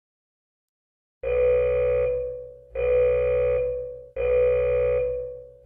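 After about a second of silence, a long electronic beep: a steady mid-pitched tone with a low buzz under it, fading at its tail. It sounds three times at even intervals of about a second and a half, with a fourth starting right at the end.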